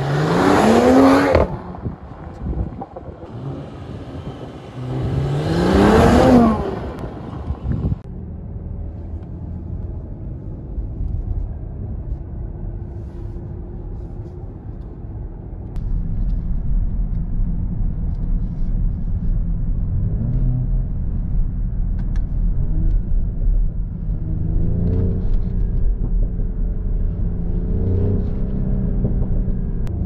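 Mercedes-AMG GLE 53's 3.0-litre inline-six engine revved twice while stationary, each rev rising sharply in pitch and falling away. It then runs steadier, and from about halfway is heard from inside the cabin under way, with a low rumble and several rising sweeps as it accelerates through the gears.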